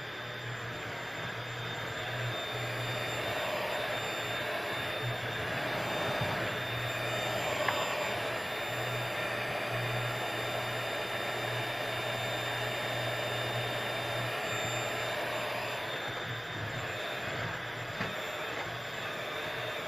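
Bissell 3-in-1 stick vacuum cleaner running steadily with a low hum and a thin high whine, as it picks up graham cracker crumbs from the floor. A brief click about seven and a half seconds in.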